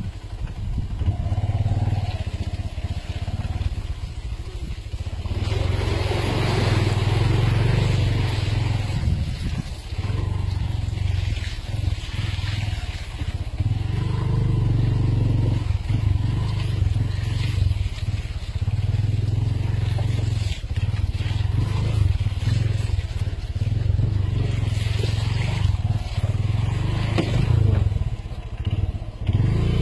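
A 4x4 vehicle's engine running steadily as it drives over a rough off-road trail, with bursts of rougher crunching noise coming and going.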